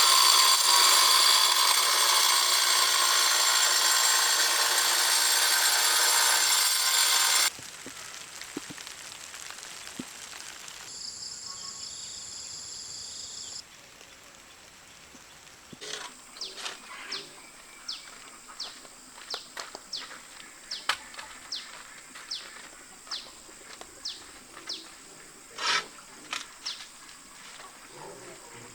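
A power tool runs loudly and steadily, then cuts off suddenly about seven seconds in. Later come a long series of short, evenly spaced tool strokes, about one and a half a second.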